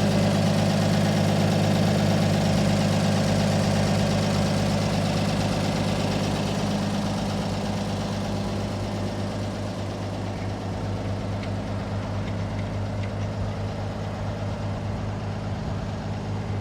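Parson backhoe's engine running at a steady, even speed, getting gradually quieter through the middle of the stretch and then holding steady.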